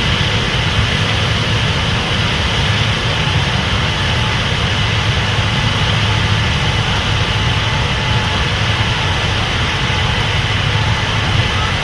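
Case IH 8250 Axial-Flow combine running steadily while harvesting corn: a constant deep engine and machinery drone with a steady higher hum over it.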